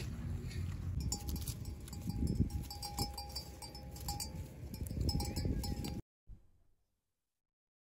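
Bells on a grazing flock of sheep and goats ringing and clinking, a steady ringing tone broken by short gaps with light clinks over it, above a low rumble. It cuts off suddenly about six seconds in.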